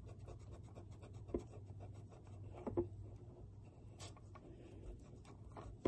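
Eraser rubbing back and forth on drawing paper, erasing pencil lines: a faint, scratchy scrubbing with a few small ticks.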